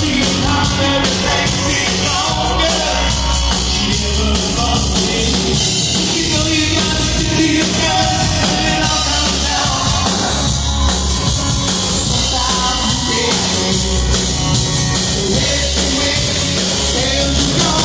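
Live rock band playing an acoustic set: several acoustic guitars strummed and picked together, with a lead vocal singing over them.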